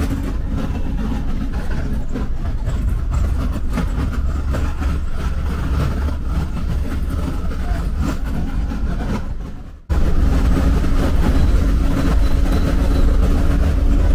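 Bus running along a highway: steady engine hum and low road rumble. About ten seconds in the sound fades out briefly and cuts straight back in.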